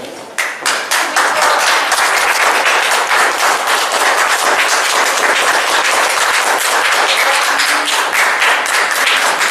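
Audience applauding. The clapping starts suddenly about half a second in, quickly builds and holds steady and loud.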